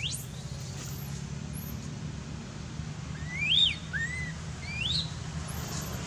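Several short, high chirping calls that rise and fall in pitch, the loudest about halfway through, over a steady low rumble.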